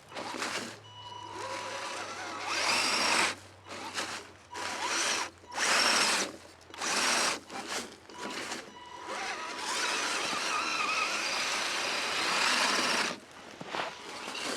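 Electric motor and geared drivetrain of an Axial SCX10 Deadbolt RC crawler whining in stop-start bursts as the throttle is worked, its tires churning in snow. Several short bursts are followed by a longer run of several seconds that stops near the end.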